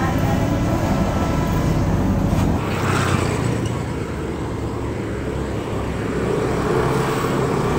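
Steady low background rumble with a few faint ticks.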